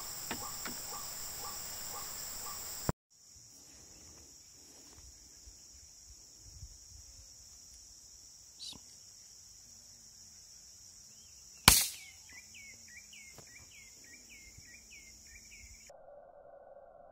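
A single sharp shot from a Sharp Tiger pump air rifle about twelve seconds in, the loudest sound, over a steady high insect drone. Right after the shot comes a quick run of short chirping calls, and near the end the sound cuts to a low steady hum.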